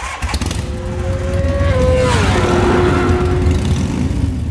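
Loud motorcycle engine passing by at speed, with a deep low engine note; its pitch drops about two seconds in as it goes past.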